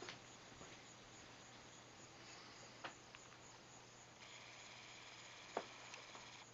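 Near silence: room tone with a faint steady hum and hiss, broken by a few soft clicks, one about three seconds in and a sharper one near the end.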